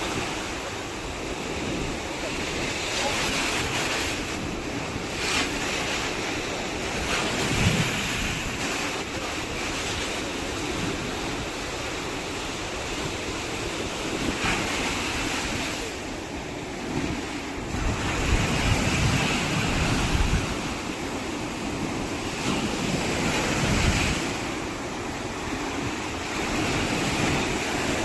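Ocean surf washing ashore in continuous waves, swelling and falling every few seconds, with wind buffeting the microphone in low rumbling gusts.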